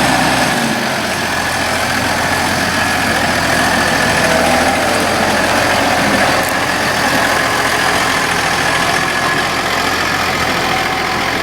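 Farm tractor's diesel engine running steadily close by, with the five-furrow reversible plough lifted while the tractor turns at the headland.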